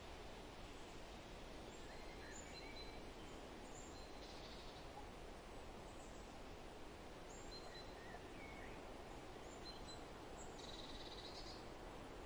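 Faint outdoor ambience: a steady low hiss with scattered short bird chirps, and two brief buzzy calls, one about a third of the way in and one near the end.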